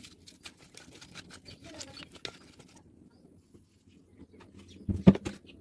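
Cut fish pieces being mixed by hand with turmeric in a steel plate: quick wet squishing and light clicks of the pieces against the metal, stopping about three seconds in. Near the end, a short burst of loud thuds.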